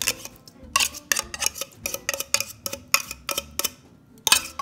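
Canned chicken being scraped out of its metal tin into a stainless steel mixing bowl: a quick, irregular run of metal clinks and taps.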